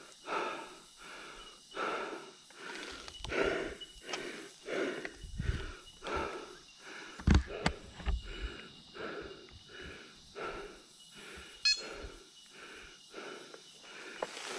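A person breathing hard in a steady rhythm of in and out breaths, winded from physical exertion, with one loud thump about halfway through.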